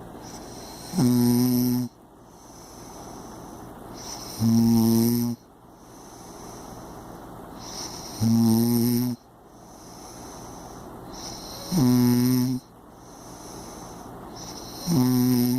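A person snoring loudly: five snores, each under a second, about every three and a half seconds, with quieter breathing in between.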